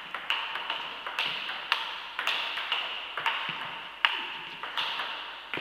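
Table tennis rally: the plastic ball clicks sharply off bats and table, about two hits a second, each hit ringing briefly in the hall.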